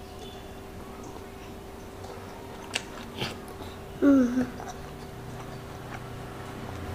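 A toddler chewing a mouthful of food with her lips closed, with a couple of faint clicks, and one short hum from her about four seconds in that falls in pitch.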